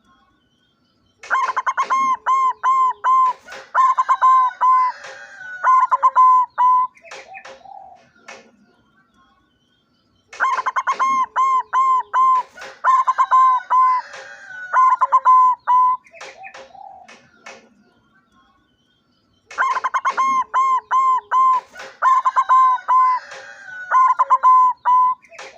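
Zebra dove (perkutut) cooing: three long phrases of quick, repeated pitched coos, each lasting several seconds, with quiet gaps of a few seconds between them.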